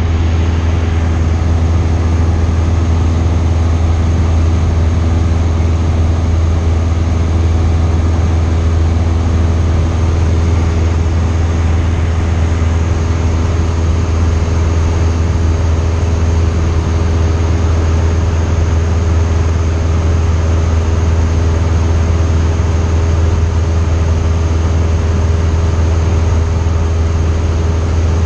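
Cessna 172's piston engine and propeller running steadily in level flight, heard inside the cabin: a deep, even hum with a constant hiss over it.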